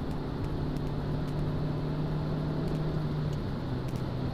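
Renault Clio III 1.6 16-valve four-cylinder engine with a Supersprint aftermarket centre pipe and rear exhaust, heard from inside the cabin while driving: a steady drone that drops slightly in pitch a little over three seconds in as the driver eases off, over road noise.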